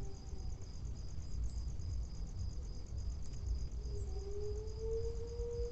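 Crickets chirping in a steady, rapidly pulsing high-pitched rhythm, with a faint held low tone underneath that slides slightly upward in the second half.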